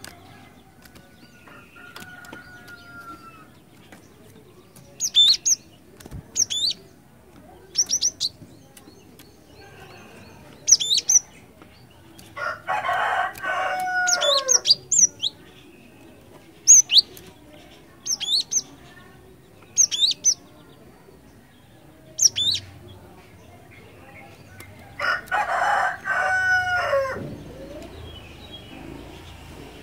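Cinereous tit (glatik batu) calling in short, sharp, high-pitched chirps, a pair or two every second or few, with pauses between. Twice a louder, longer call with a falling end cuts in, like a rooster crowing.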